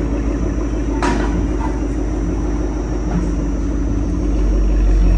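Ford Mustang with a modified exhaust idling with a deep, steady rumble from the quad tailpipes, growing a little louder near the end. A short sharp sound comes about a second in.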